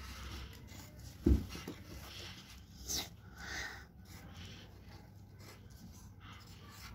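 Faint scratching of a pencil writing on paper, with a dull low thump about a second in and a brief sharp sound near the middle.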